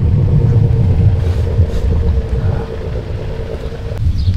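Wind buffeting an outdoor microphone, heard as a low, uneven rumble, with a steady faint hum underneath that cuts off abruptly near the end.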